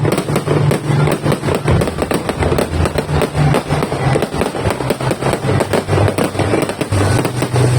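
A 5,000-shot fireworks cake firing in rapid succession, a continuous run of sharp bangs several per second, with music playing underneath.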